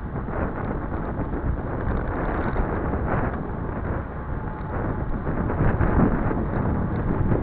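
Wind rushing and buffeting over the microphone of a cyclist's camera sunglasses during a fast road-bike descent, a steady rush that grows slightly louder near the end.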